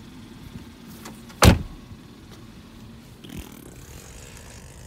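A single loud thump about a second and a half in, with a smaller knock near the end, over a steady low hum in a car.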